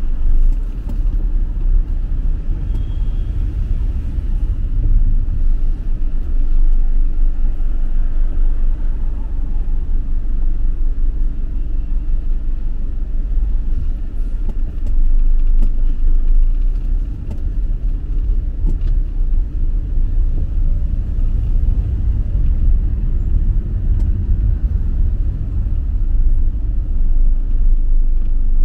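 Street traffic: a steady low rumble of road vehicles.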